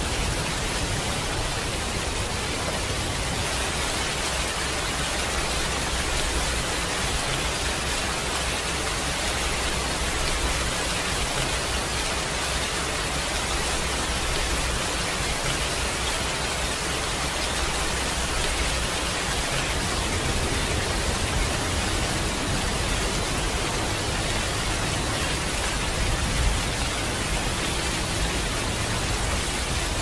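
Steady rain falling, an even hiss, with one soft low thump near the end.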